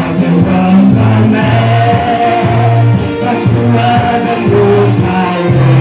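Live gospel music: a group of voices singing together over a band, with a bass line moving between held notes and a steady beat.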